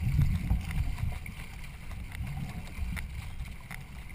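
Racing canoe under way on the water, with wind rumbling on the microphone and faint irregular ticks of paddle and water. The rumble is strongest at the start and eases after about a second.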